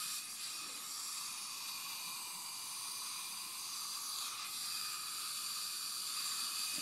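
Steady hiss of dental compressed air and suction in the mouth as the etched teeth are air-dried to a dry, chalky surface before bonding.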